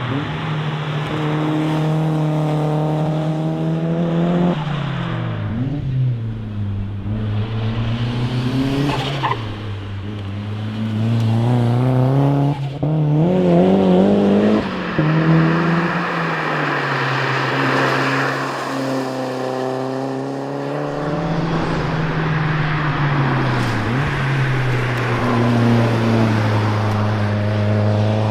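Mazda MX-5 SE Turbo's turbocharged four-cylinder engine driven hard on a rally stage, its pitch climbing under acceleration and dropping sharply several times through gear changes and lifts.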